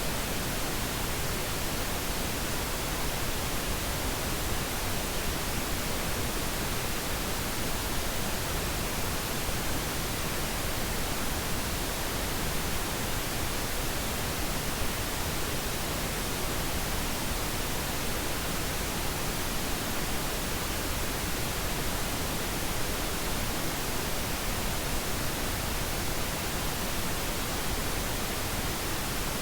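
Steady pink noise: an even, unchanging hiss with no rhythm, tones or events.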